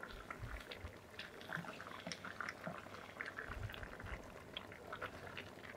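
Roasted potato cubes tipped from a plastic bowl into a large steel pot of chicken curry, giving a few soft thuds, over faint scattered popping from the curry simmering on the gas burner.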